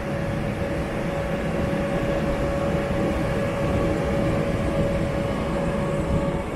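Rc6 electric locomotive pulling a train slowly out of the station: a steady low rumble with a held mid-pitched hum, which stops shortly before the end.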